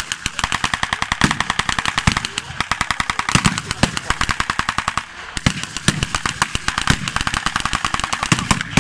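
Continuous blank gunfire from a staged battle: rapid machine-gun bursts with other shots mixed in, many cracks a second, easing only briefly about five seconds in.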